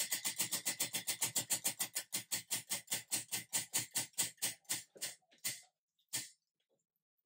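Prize wheel spinning down, its pointer clicking against the pegs on the rim: the clicks start fast, at about eight a second, slow steadily to a few last ones and stop about six seconds in as the wheel comes to rest.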